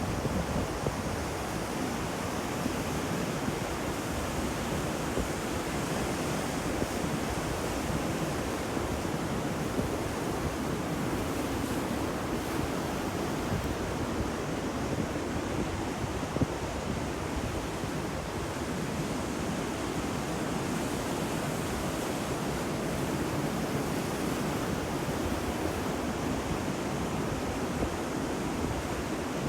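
Ocean surf washing onto a shore: a steady, even rush of waves.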